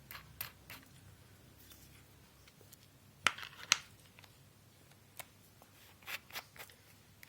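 Handling clicks and taps of metal parts as a buffing attachment is fitted onto the threaded shaft of a motor converted from a water pump, with no motor running. Two sharp clacks come a little over three seconds in, and a few lighter clicks follow around five to six seconds.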